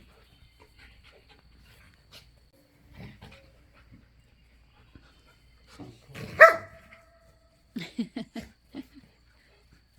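Dogs playing rough. The first six seconds are fairly quiet, with faint scuffles. About six and a half seconds in comes one loud, high-pitched bark, and near the end a quick string of five or six short, deeper barks.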